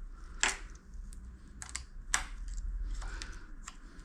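A few scattered sharp clicks and taps of hand tools and small metal bike parts being handled while bolts on a mountain bike's front end are worked on, the loudest about two seconds in.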